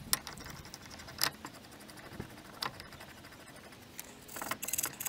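Metal parts and tools clinking as they are handled during a brake pad job: a few separate clicks, then a quick rattling run of clicks near the end.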